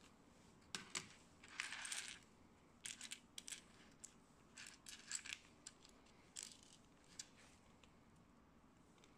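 Small Lego-compatible plastic bricks clicking and clattering as they are picked out of a loose pile and handled: a scattered run of short, sharp clicks over about six seconds, with a brief rattling rustle about a second and a half in.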